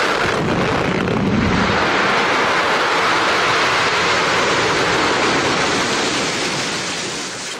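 Loud title-card sound effect: a long, steady rush of noise with a low rumble about a second in, fading out near the end.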